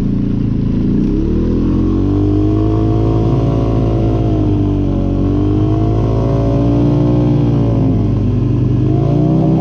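Four-wheeler (ATV) engine revving hard under load while pushing through deep snow in two-wheel drive; its pitch climbs over the first two seconds, dips briefly about five seconds in and again near the end, then climbs once more.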